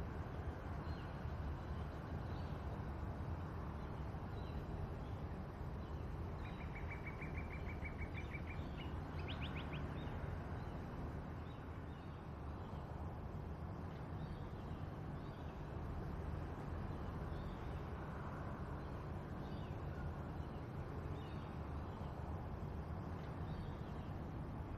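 Steady low rumble of distant diesel locomotives working a freight train, with birds calling over it. About six seconds in, a bird gives a rapid even trill lasting a couple of seconds, followed by a few quick notes.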